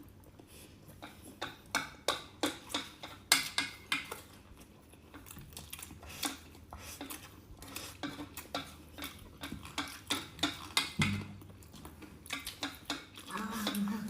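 Eating utensils clicking and scraping against bowls and plates during a meal: many short, sharp clicks at an uneven pace.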